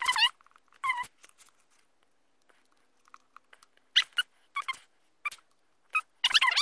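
A pet animal giving short, high-pitched calls that bend in pitch, a couple near the start and a run of them over the last few seconds, with a quiet stretch in between.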